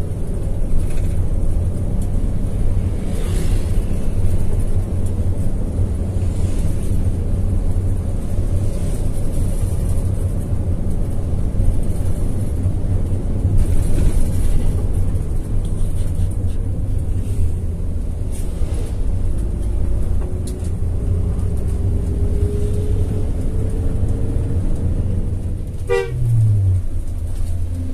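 Inside a moving bus: the diesel engine's steady low drone with road noise, a whine rising in pitch over several seconds in the second half, and a short horn toot near the end.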